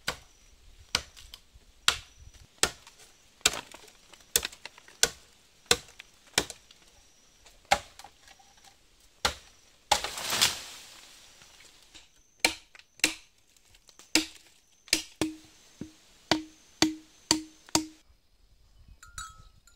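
A machete chopping a standing bamboo stalk: about twenty sharp chops, roughly one a second and quicker toward the end. A longer crash comes about halfway through. The later chops ring with a short hollow tone from the bamboo.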